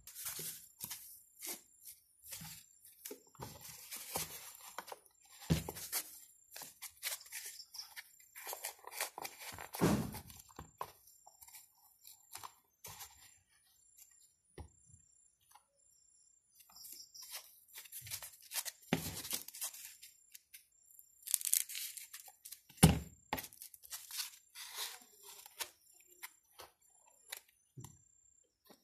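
Pieces of white packing foam being handled and pressed into a cardboard box: scratchy rustling and scraping of foam against cardboard, broken by several knocks, the sharpest about three-quarters of the way through.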